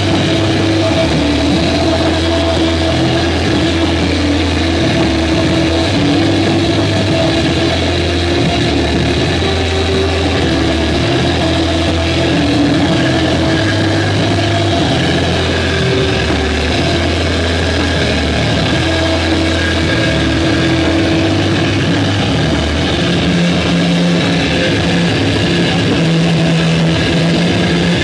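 A live rock band playing loudly: heavily distorted electric guitar and bass holding long, droning low notes that change every few seconds, the bass line moving higher near the end.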